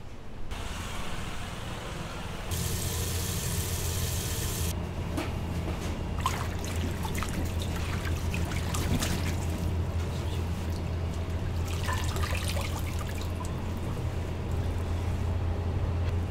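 Tap water runs into a stainless-steel sink for a couple of seconds. Then gloved hands swish and rinse leafy greens in a water-filled tray, with irregular splashes and light clatter, over a steady low hum.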